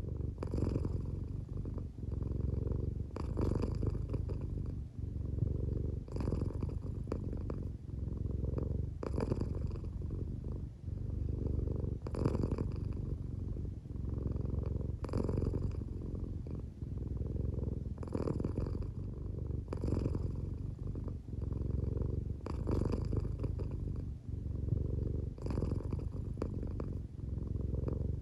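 American Shorthair cat purring steadily while drowsy and half-asleep, the purr swelling with each breath about every three seconds; the owner thinks it may be partly snoring.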